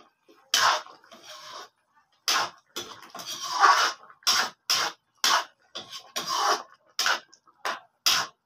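Metal ladle scraping against an aluminium pan while stirring a saucy stew, in a string of short, uneven scrapes about one to two a second, with one longer stir about three seconds in.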